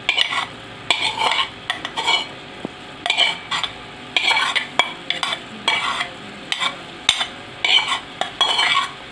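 Metal spoon repeatedly scraping sautéed onions and garlic out of a metal pot onto browned meatballs in an aluminium pan: a run of short, irregular scrapes and clinks over a light, steady sizzle.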